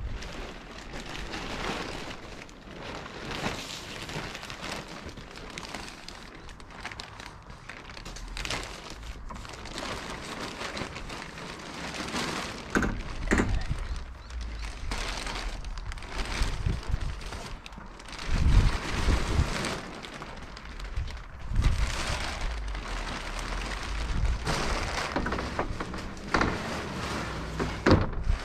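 Large clear plastic sheet crinkling and rustling as it is handled, with water pouring off it and splashing onto concrete. Low rumbles of wind on the microphone now and then.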